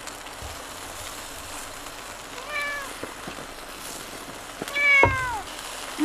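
Domestic cat meowing twice: a short meow about two and a half seconds in, then a longer, louder meow near the end that falls in pitch, with a dull low thump at the same moment.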